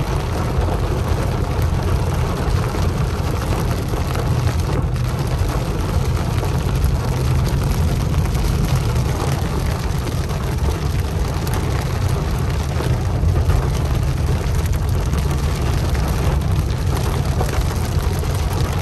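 Heavy downpour drumming steadily on the car's roof and windshield, heard from inside the cabin, over a low steady rumble of the car rolling along the flooded road.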